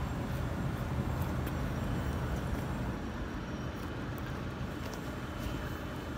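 Steady low rumbling background noise with a few faint scattered clicks.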